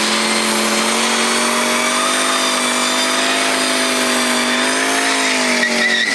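Car engine held at high, nearly steady revs, a continuous drone whose pitch rises slightly midway.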